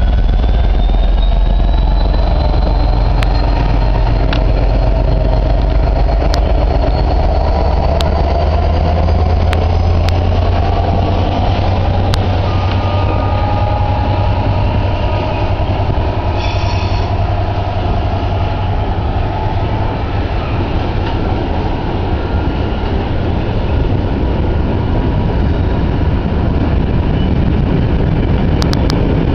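GB Railfreight Class 66 diesel locomotive's two-stroke V12 engine running as it hauls a freight train past, then the steady heavy rumble of its wagons rolling by. Faint thin wheel squeals and a few sharp clicks are heard.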